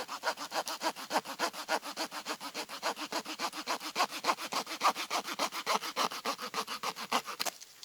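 A hand saw cutting through a wooden stick with rapid, even back-and-forth strokes that stop shortly before the end.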